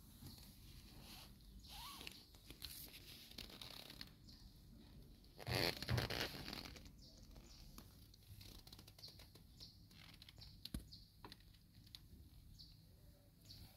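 Faint scuffs and small ticks of a mother cat and her kittens moving on a tiled floor. About five and a half seconds in comes a louder rustle lasting about a second, as the long-haired mother cat's fur brushes against the microphone.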